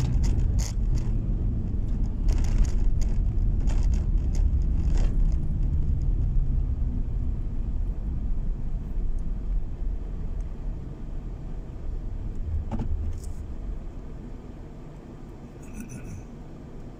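Car road noise heard from inside the cabin: a low rumble of tyres on packed snow, with scattered rattles and clicks in the first few seconds, fading steadily as the car slows to a stop.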